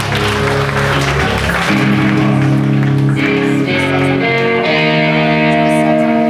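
Guitar music: a run of held, ringing chords, changing every second or two.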